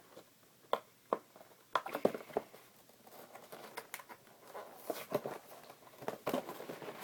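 Cardboard toy packaging being worked open by hand: scattered scrapes, clicks and rustles, coming in clusters of short sounds.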